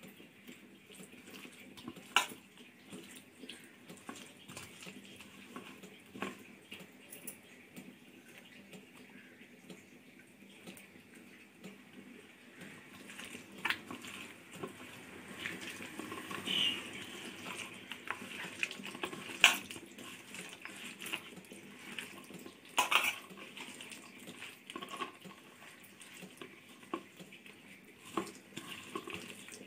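Boiled elephant foot yam pieces being mixed by hand into a wet masala paste in a steel bowl: faint squishing and rubbing, with scattered light knocks of the yam and hand against the bowl.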